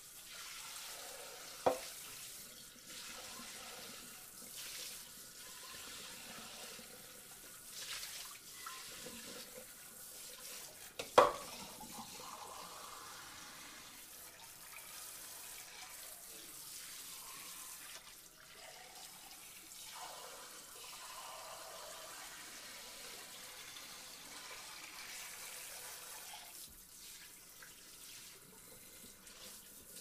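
Water spraying steadily over dishes in a sink, with dishes clinking sharply twice, once about two seconds in and more loudly about eleven seconds in.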